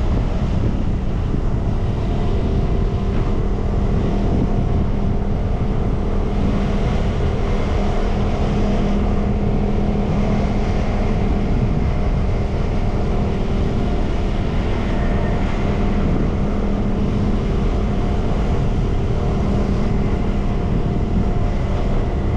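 Steady running and road noise from a vehicle travelling along a street, with a constant hum and wind on the microphone.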